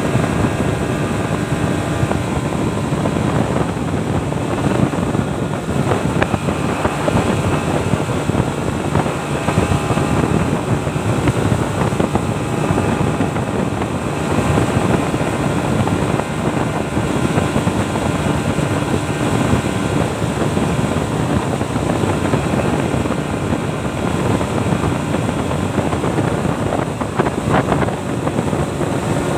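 A 40 hp outboard motor running steadily at speed, driving a heavily loaded longboat, with water rushing along the hull.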